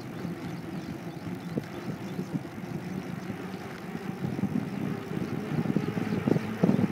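Steady low rumbling noise of movement along a paved road, wind and motion on a handheld phone's microphone, with a few soft knocks.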